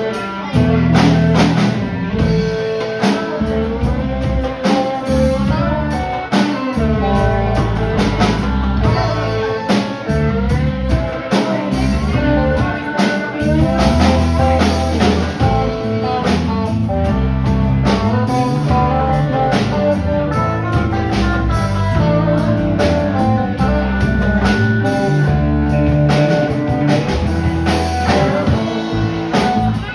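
Live band playing with electric guitars and a drum kit: a guitar picks out sliding lead lines over a steady beat.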